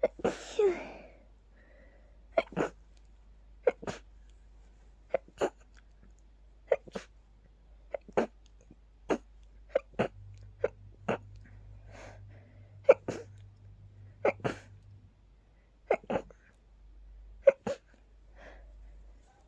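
A person's rapid run of short, sharp sneezes, many coming in quick pairs, roughly one or two a second: an allergy sneeze attack set off by pollen.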